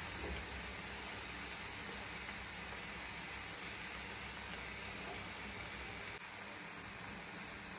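Shredded chicken cooking in a pan with a little liquid, giving a steady sizzling hiss.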